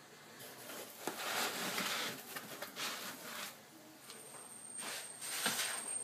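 Foam packing blocks and cardboard rustling and scraping as the amplifier is pulled up out of its shipping box, in two spells, with a couple of light knocks.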